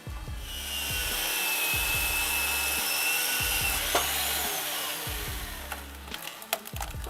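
A power saw cutting through a log for about five seconds, over background music with a steady low beat.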